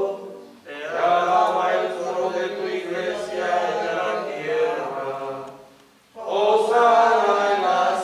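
A priest chanting the Eucharistic prayer of a Catholic Mass in Spanish, in two long sung phrases with a short pause about six seconds in.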